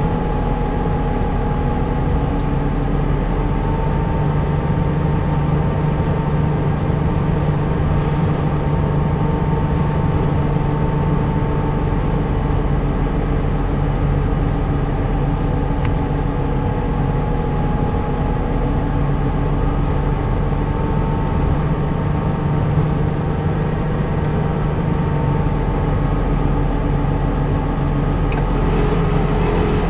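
Diesel city bus running along its route, its engine and drivetrain holding a steady drone, with a faint whine that drifts slightly up and down in pitch.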